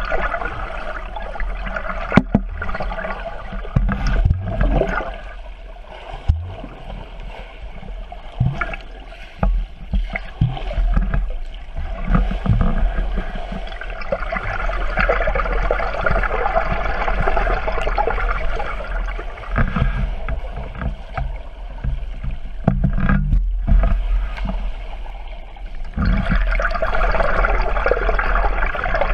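Muffled rushing and gurgling of pool water heard underwater as a swimmer kicks and strokes past, with a few sharp knocks and a steady low hum underneath.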